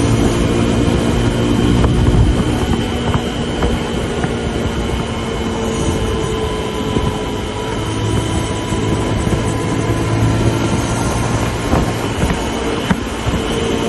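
Suzuki DR150's single-cylinder four-stroke engine running steadily at high speed, with wind and road noise.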